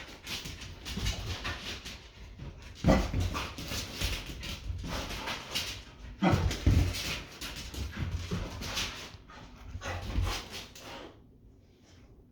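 An agitated dog whimpering and panting, with several louder outbursts; it stops about eleven seconds in.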